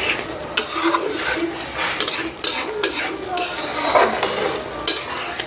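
A spoon or spatula stirring and scraping chicken keema curry around a cooking pan, in irregular strokes with a few knocks against the pan.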